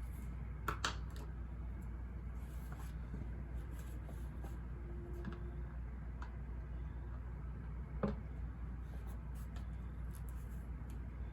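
Steady low ambient white-noise hum with faint desk-work sounds of pen and paper: a couple of small clicks just under a second in and another about eight seconds in.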